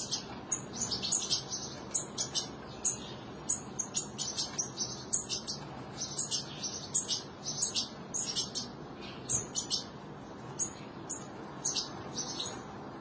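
A family of European goldfinches, an adult with fledglings, chirping: a quick run of short, high-pitched calls, a few a second, over a steady low hiss.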